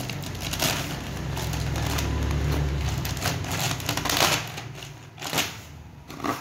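Clear plastic packaging bag crinkling and rustling in the hands as it is pulled open and the rubber belt inside is handled, in a run of irregular crackles. A low steady hum sits underneath and stops about three seconds in.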